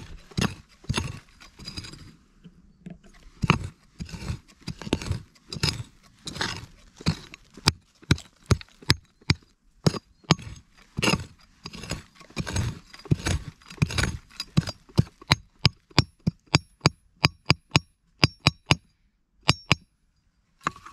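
Short-handled mattock chopping into stony, root-filled earth: a run of strikes and scrapes that settles into quicker blows, about two or three a second, some with a sharp clink as the blade hits pebbles. The blows stop shortly before the end.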